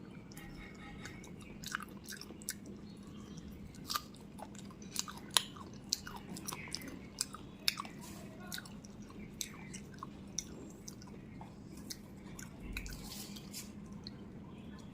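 Close-miked chewing and biting of fried chicken, with irregular crisp crunches and wet mouth clicks.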